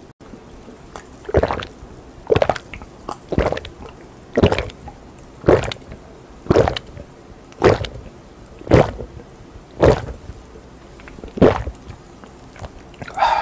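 A person gulping down a glass of sparkling orange drink in one go, close to the microphone: a steady run of swallows, about one a second, ten or so in a row.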